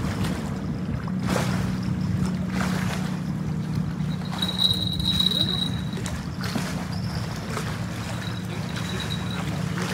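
Steady low engine hum. A thin high whistling tone sounds briefly about halfway through and again faintly near the end.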